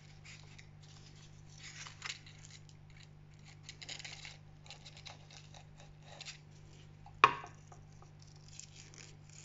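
A small knife slicing through a begonia leaf on a wooden cutting board, faint crisp cutting and scraping several times as the midrib is cut out, with one sharp click about seven seconds in. A steady low hum runs underneath.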